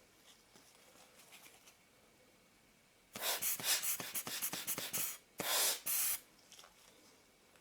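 Hand-squeezed rubber air blower puffing air onto a lens element to clear dust: a rapid run of short hissing puffs about three seconds in, then two longer puffs.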